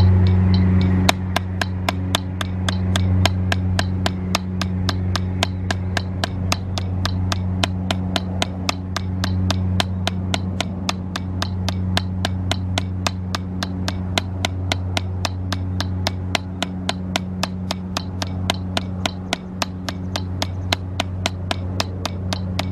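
Drumsticks striking a rubber drum practice pad in an even, unbroken stream of single strokes, about four a second, starting about a second in. A steady low hum runs underneath.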